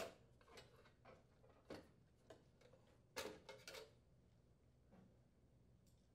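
Faint, scattered clicks and light taps of the sheet-metal upper rear access panel being aligned against the back of the gas range, with a short cluster of taps about three seconds in.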